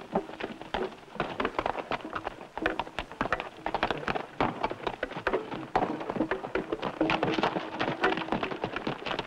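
Hoofbeats of two horses galloping over hard, rocky ground: a rapid, irregular clatter that grows louder from about six seconds in as the horses come closer.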